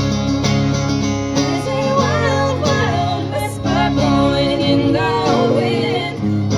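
A band playing a country song, with guitar and a singer's voice over it.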